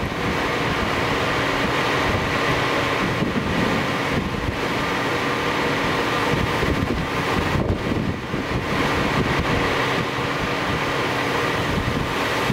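Steady rushing wind noise with faint steady hums underneath.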